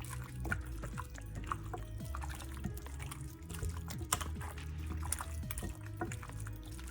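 Wet squelching and splatting of chicken wings being mixed in vegetable oil and jerk marinade, in many small irregular squishes over a steady low hum.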